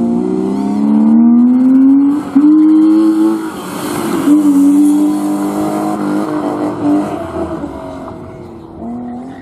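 BMW E36 competition car's engine accelerating hard, its pitch rising, then running at steady high revs and fading as the car pulls away. A short burst of tyre noise comes around the middle, as the car turns.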